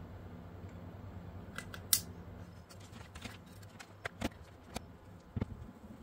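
Small sharp plastic clicks and taps as LC fiber connectors are snapped into a keystone coupler on a plastic wall faceplate and the faceplate is handled; a single sharp click about two seconds in is the loudest.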